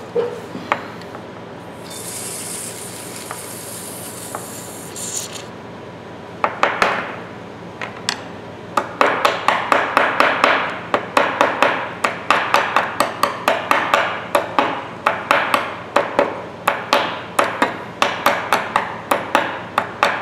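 A short aerosol spray of penetrating oil hissing for about three seconds. Then a rusty ratchet head, worked with a screwdriver, gives steady metal clicking at about three clicks a second, as the frozen mechanism starts to move.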